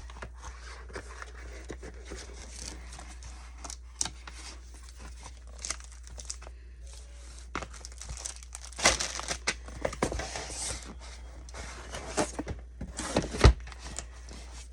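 Packaging crinkling, rustling and tearing as an item is unwrapped by hand, with scattered clicks; the rustling grows louder in the last few seconds, ending with a sharp click.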